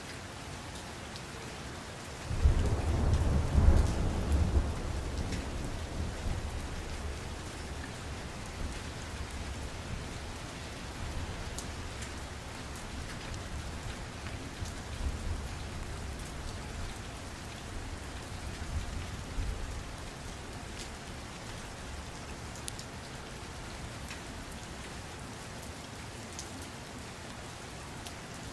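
Steady rain, with a low rumble of thunder that starts suddenly about two seconds in and dies away slowly over the next fifteen seconds or so.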